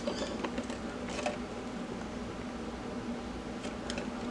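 A steady low hum with a few faint, short clicks of small objects being handled, about four over the span.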